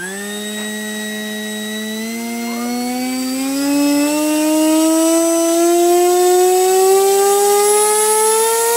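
Turnigy 2836 2350 kV brushless outrunner motor driving a propeller on a Skyfun RC plane: it spools up sharply at the start, then its whine climbs slowly and steadily in pitch as the speed is brought up, getting louder about four seconds in.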